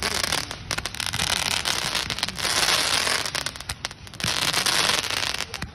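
146-shot brocade crown firework candle firing shot after shot: spells of crackling hiss about a second long, four or so, with short dips between them.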